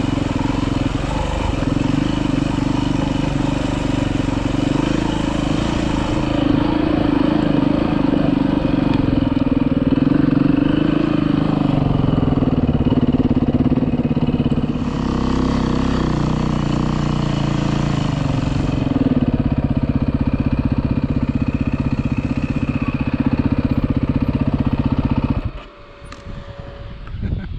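Dirt bike engine running under way, its pitch shifting with the throttle, then shut off abruptly near the end.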